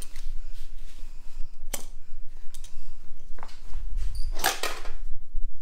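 Sharp clicks and clatter of a plastic toy flip-ramp playset and die-cast mini monster trucks being handled: a few single clicks, then a louder rattle about four and a half seconds in.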